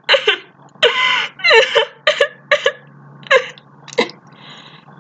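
A person crying hard: a string of short, gasping sobs, with a shaky breath near the end.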